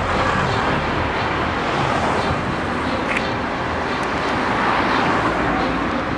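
Road traffic on a city street: a steady noise of cars going by.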